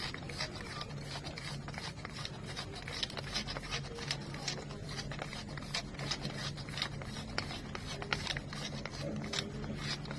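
Irregular light clicks and scrapes of kitchen prep work, utensils and food being handled, over a low steady hum.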